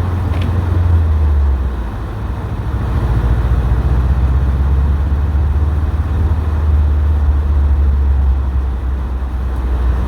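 Subaru WRX STI driving: the turbocharged flat-four engine drones low under steady road noise. The level dips briefly about two seconds in, then picks back up.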